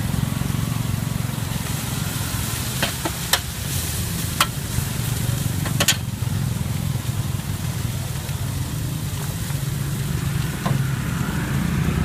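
Yellow noodles sizzling as they fry in oil in a hot wok, steady throughout, with a few sharp metal clinks against the pan between about three and six seconds in. A steady low hum of passing street traffic runs underneath.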